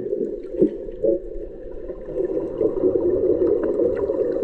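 Muffled underwater rushing and gurgling from scuba divers' exhaled bubbles, heard through a camera's waterproof housing, with a couple of soft knocks within the first second.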